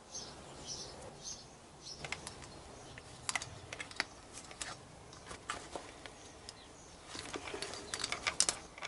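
Small sharp metallic clicks and clinks, irregular and thickening near the end, as the head and disc flange of an angle grinder are handled while a cutting disc is being fitted. A few faint high chirps sound in the first second or so.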